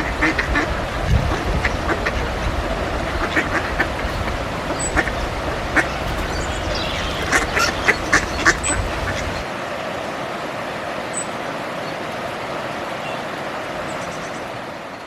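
Ducks quacking, many short calls scattered through the first half and thickest about seven to nine seconds in, over a steady outdoor hiss. A low rumble underneath stops about halfway through, and the sound fades out near the end.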